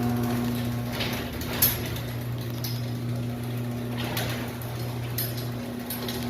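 Electric garage door opener motor humming steadily as it drives the door down on a test run after its down-limit travel has been adjusted, with several sharp clacks from the moving door along the way.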